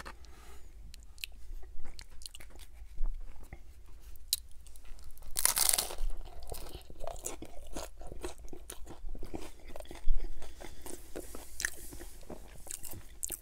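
Close-miked crunching of a hard-shell taco topped with crispy fried chicken skin: a loud crunching bite about five and a half seconds in, with crackly chewing before and after.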